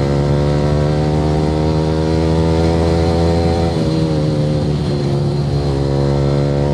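Yamaha R15 V3's single-cylinder engine, fitted with an Akrapovic R9 aftermarket exhaust, running at a steady cruising pitch while riding. About four seconds in the note sags a little and blurs briefly, then settles back to a steady note.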